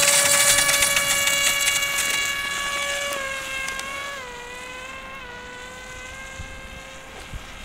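Small RC foam plane's electric motor and propeller whining steadily as the plane takes off and flies away, fading as it goes. The pitch steps down slightly a few times about three to five seconds in.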